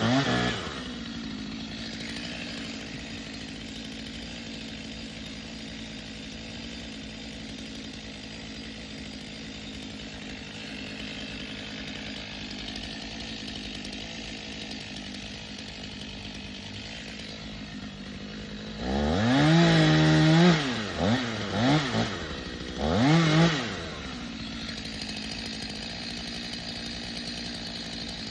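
Two-stroke chainsaw idling steadily, revved up hard about 19 seconds in and then given a few short throttle blips before it settles back to idle.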